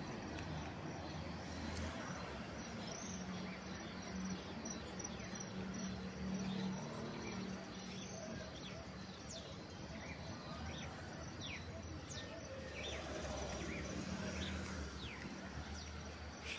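Outdoor street ambience: scattered short bird chirps over a steady low hum.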